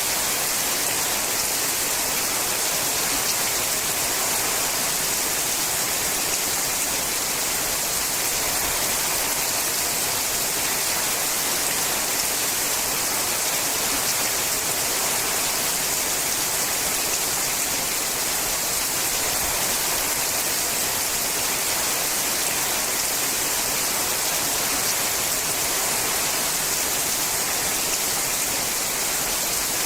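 Steady, heavy rain falling on a sheet-metal roof, a dense even hiss of drops.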